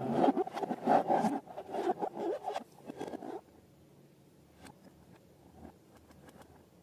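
Rapid crackling and rubbing from hands working balloons and slime, which stops abruptly about three and a half seconds in, followed by a few faint clicks.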